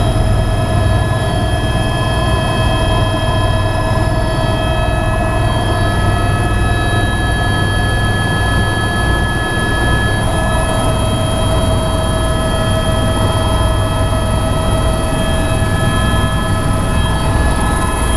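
Helicopter turbine engine and rotor heard inside the cabin in flight: a steady low rotor drone under several steady whining tones.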